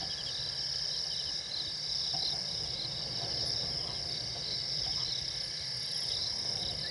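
Night chorus of crickets and other insects: a steady high trilling, with one chirp repeating about twice a second, over a low background rumble.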